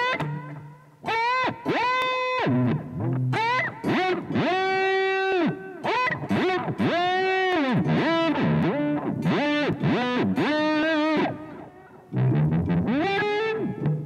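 Silvertone SG-copy electric guitar played through a Zoom G1Xon, its expression pedal bending the pitch: a string of notes that swoop up and dive back down, emulating tremolo-bar dive bombs. The playing dips briefly near the end, then the swoops resume.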